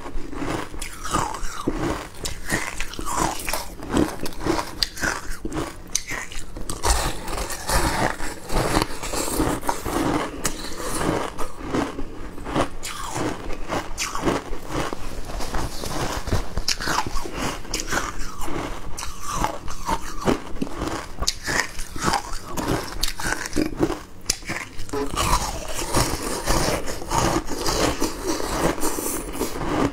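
A person biting and chewing mouthfuls of shaved ice: a continuous run of crisp crunches.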